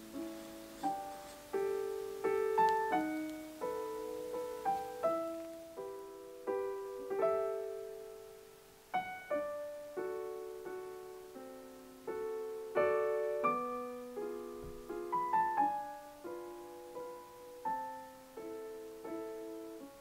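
Background music: gentle solo piano, single notes and chords that each ring and fade away.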